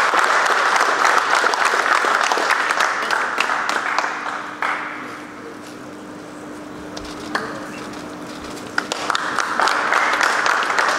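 A small group of people applauding. The applause dies away about four to five seconds in, leaving a quieter lull with a few clicks, and starts up again about nine seconds in.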